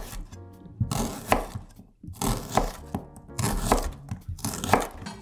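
Chef's knife slicing a red onion on a wooden cutting board: four slicing strokes about a second apart, each a crisp cut ending in a knock of the blade on the board, over background music.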